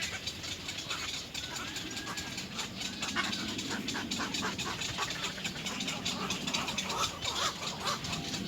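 Little egret chicks begging at the nest, a rapid run of short repeated calls.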